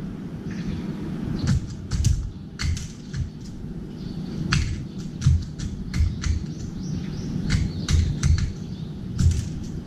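A crow pecking cat-food kibble from a metal bowl: a string of sharp clicks and taps, beak on metal and hard pellets, irregular over several seconds, with a faint low rumble underneath.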